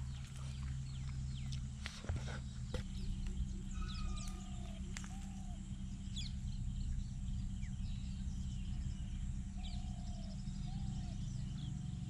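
Outdoor ambience: birds giving short chirps and whistles over a steady low rumble. A few sharp clicks or snaps come about two seconds in.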